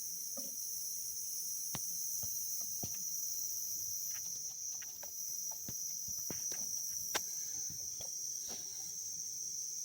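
Humidity blaster running: a steady high-pitched whine and hiss over a low hum, with irregular faint clicks and ticks, one sharper click about seven seconds in.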